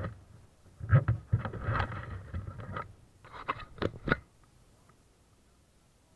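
Irregular scraping and rubbing noises in short bursts, stopping about four seconds in.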